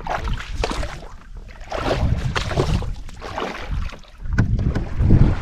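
Wind rumbling on the microphone over water and irregular knocks and splashes around a fishing kayak, with the loudest burst near the end.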